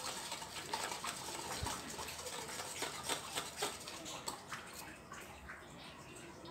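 Wire whisk stirring wet gram-flour (besan) batter in a stainless-steel bowl: a wet stirring sound with irregular light clicks of the whisk against the bowl, growing a little softer toward the end.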